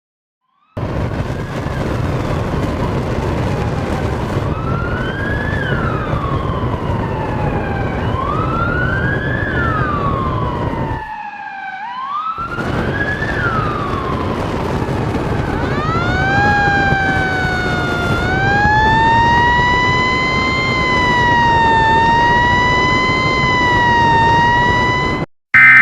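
Sirens wailing over a steady rushing noise. First one siren rises quickly and falls slowly, about once every four seconds. Partway through, a slower, fuller wail takes over and swells up and down; the noise drops out briefly around the middle.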